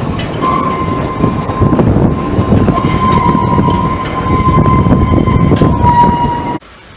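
Narrow-gauge steam train pulling away: a long, steady steam whistle blast over the rumble of the moving carriages. Whistle and rumble cut off suddenly near the end.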